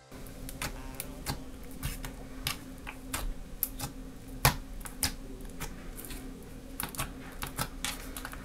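Peel-off face mask slime squeezed and poked with the fingers, giving irregular sharp pops and clicks, one or two a second.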